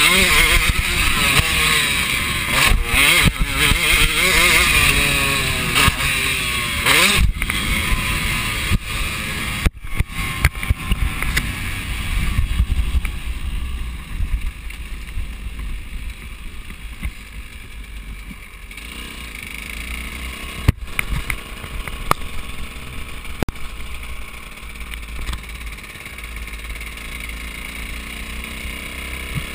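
KTM motocross bike engine, heard close up: revving hard with its pitch climbing and dropping through the gears for about the first ten seconds, then falling to a quieter, steady low running as the bike rolls along slowly.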